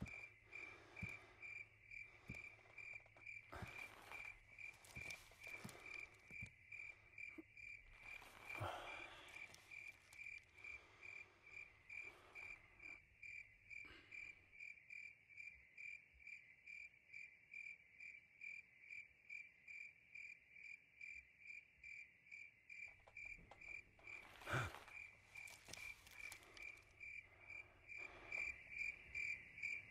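Crickets chirping in a steady, even rhythm of repeated high chirps, with a few soft knocks or rustles, the loudest about 25 seconds in.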